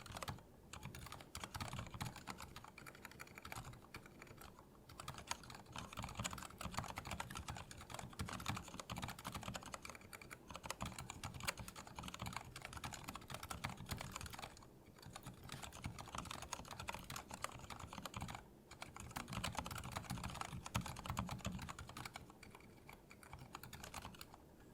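Continuous typing on a Lily58 Pro split keyboard with Cherry MX Silent Red linear switches in a 3D-printed case: a dense run of keystrokes broken by brief pauses every few seconds.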